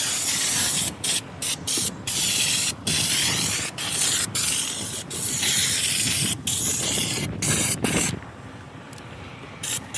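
Pressurised sprayer hissing in repeated bursts of about a second or less, with short breaks, as oil is sprayed onto rusted excavator parts.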